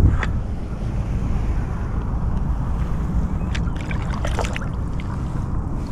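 Wind rumbling on the microphone, with a few light knocks and a small splash about four seconds in as a speckled trout is slid off a plastic measuring board back into the water.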